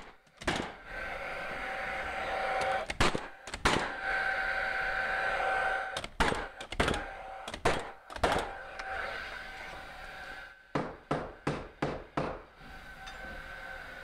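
A cordless framing nailer fires nails into a 2x4 stud: about eight sharp shots over the first eight seconds, with a steady whine from the tool between shots. A quick run of about six hammer blows follows, driving home nails that didn't fully set.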